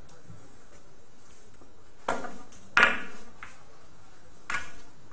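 Billiard balls clacking during play: three sharp clicks, each with a short ring. The loudest comes about three seconds in.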